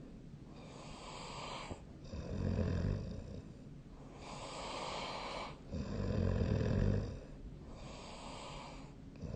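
A sleeping person snoring: two low snores about three and a half seconds apart, with a quieter, breathy hiss between them.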